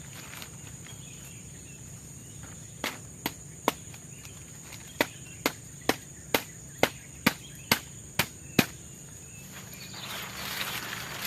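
Forest insects keep up a steady high drone. Over it come sharp strikes: three about three seconds in, then a run of eight about two a second. A rustling starts near the end.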